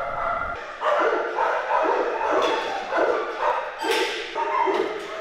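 Several dogs barking over and over in a kennel room, the barks overlapping at about two a second.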